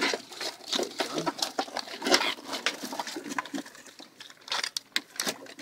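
Live Dungeness crabs in a wire-mesh crab trap, their shells and claws clicking, scraping and knocking against each other and the wire as they are pulled out by hand: a quick, irregular run of sharp clicks and rattles.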